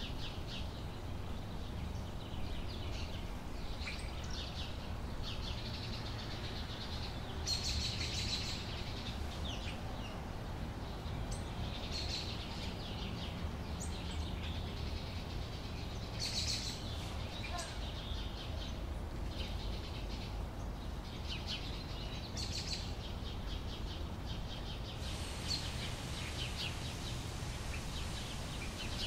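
Small birds chirping and twittering in short spells every few seconds, with a quicker run of chirps near the end, over a steady low background rumble.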